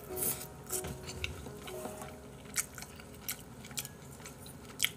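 Chopsticks clicking lightly against a bowl, a dozen or so irregular ticks, mixed with mouth sounds of chewing tteokbokki rice cakes.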